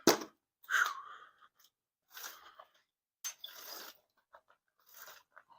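A sharp knock, then several short scraping and rustling noises: a wheel and tire being worked off the hub of a jacked-up car.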